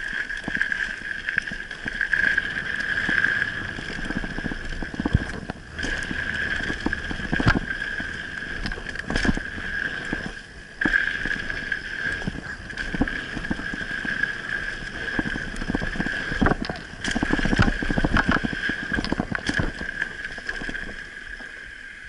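Mountain bike ridden over a dirt trail: a steady high buzz from the rear hub freewheeling that cuts out briefly twice, over tyre rumble and wind on the microphone, with knocks and rattles as the bike hits bumps, busiest near the end.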